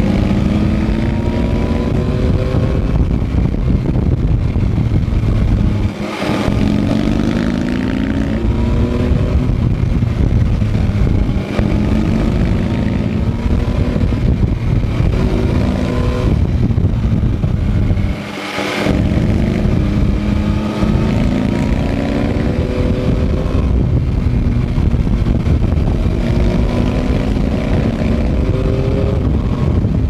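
Yamaha MT-09 SP's inline three-cylinder engine heard from on board, accelerating and easing off through a run of bends, its pitch rising and falling again and again. Two short breaks in the sound, about six seconds in and again near eighteen seconds, where the revs drop and then climb once more.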